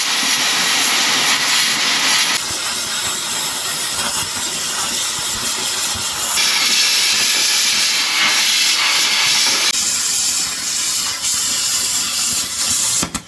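Loud, steady hiss of a metal-cutting tool working through steel, clearancing for headers. It starts and stops abruptly and changes sharply in tone three times along the way.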